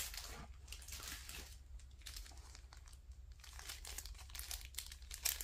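Clear plastic sticker packets crinkling as they are picked up and handled, in short irregular rustles.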